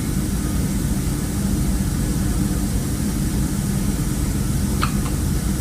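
Steady low machine hum, an even drone with no change in level. A short faint high chirp comes near the end.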